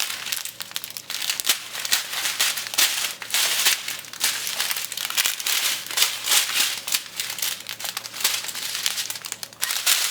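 Plastic packaging crinkling and rustling in irregular handling bursts, the small bags of diamond-painting drills being handled and sorted.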